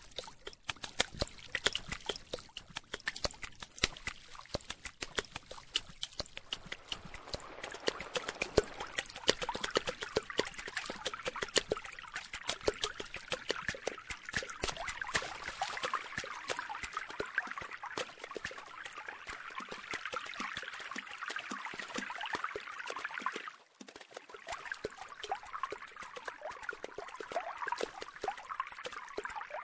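Running water trickling and splashing, a dense patter of small clicks, like a stream over rocks; it drops away briefly near the end.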